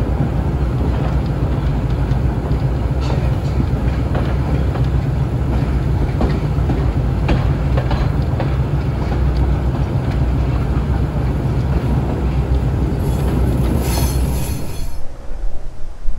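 English Electric 800 class diesel-electric locomotive running with a steady low engine drone, with faint clicks of the wheels over the rail joints. A brief high squeal comes near the end, just before the sound drops away sharply about fifteen seconds in, leaving wind noise on the microphone.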